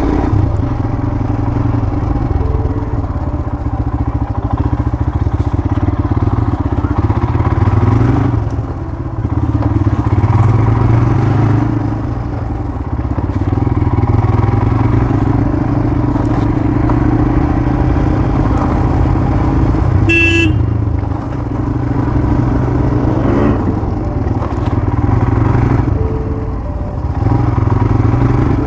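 Motorcycle engine running steadily as it rides along, easing off a few times. A short horn toot sounds about twenty seconds in.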